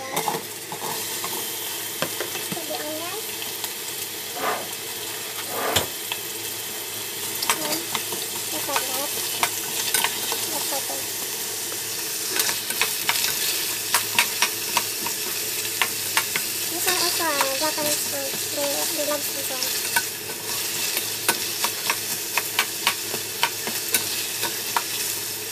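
Sliced onion sizzling as it drops into hot oil in a stainless steel pot, then frying with a steady sizzle. A spatula stirs it, with many small scrapes and taps against the pot.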